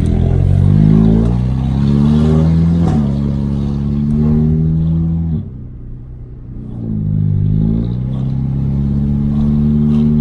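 Audi A3 8P's turbocharged TFSI four-cylinder, running a downpipe and 2.5-inch straight pipe, accelerating through the gears with its engine note rising. The pitch drops at a gear change about three seconds in. A little over five seconds in the engine comes off throttle and goes quieter for a second or so, then pulls again with a rising note.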